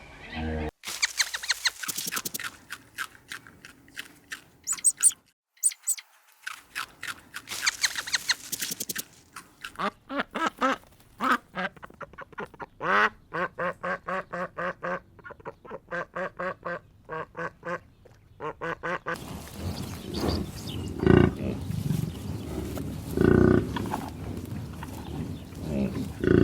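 Ducks quacking in quick series of short calls. In the last several seconds the sound turns noisier, with a few louder, lower calls.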